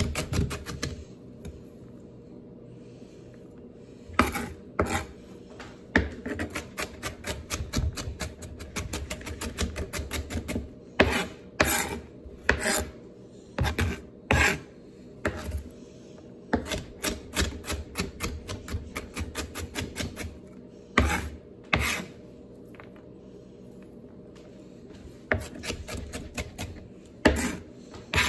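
Chef's knife mincing celery on a cutting board with a cross chop: runs of quick knocks, several a second, as the blade chops through the pile, with a few harder strikes and two short pauses.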